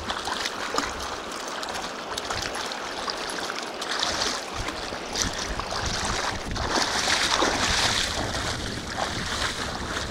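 Shallow mountain river running over rocks, with stronger surges of splashing water about four seconds in and again, loudest, about seven seconds in.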